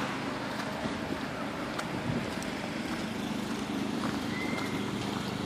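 A motor vehicle engine idling steadily over street noise, with scattered light clicks and a short high squeak about four seconds in.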